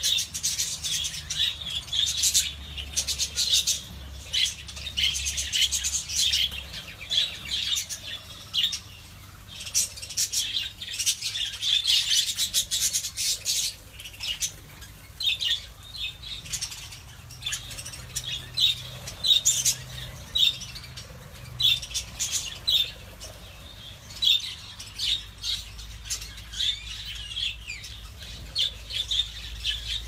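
A flock of budgerigars chattering with a dense, continuous stream of short chirps, with wings flapping as birds flutter about.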